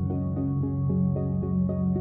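Background music: a calm electronic tune with steady sustained notes and a melody moving in short notes.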